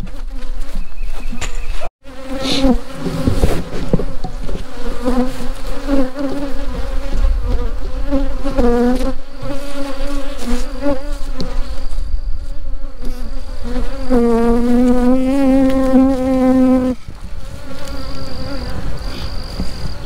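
Honeybees buzzing close to the microphone, flying around its furry windscreen. Their buzz wavers up and down in pitch as they pass, and one bee holds steady right at the mic for a few seconds late on.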